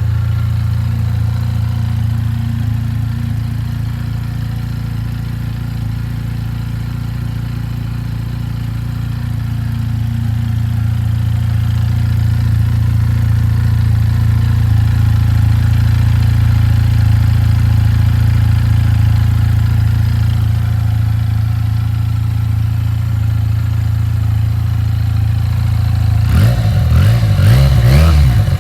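Benelli 302R's parallel-twin engine idling steadily just after starting, its idle rising slightly about ten seconds in. Near the end the throttle is blipped, with quick revs up and down.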